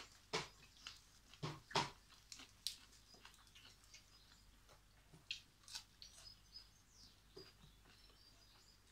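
A person eating raw leafy vegetables and herbs close to the microphone. The chewing and lip smacks come as a series of sharp clicks, thickest in the first two seconds and sparser after.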